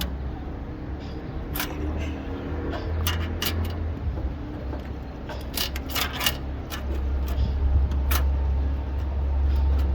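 Soapstone and tape measure working on a sheet-steel floor pan: light scraping and a run of sharp clicks and taps, over a low steady rumble.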